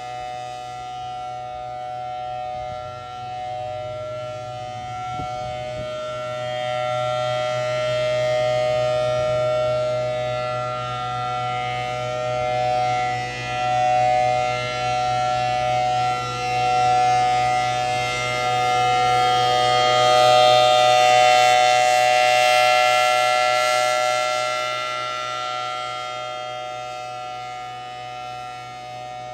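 Federal Signal Thunderbolt 1000T outdoor warning siren sounding its Alert signal, a steady tone held at one pitch. It swells louder to a peak about two-thirds of the way through and then fades as the rotating horn turns past and away.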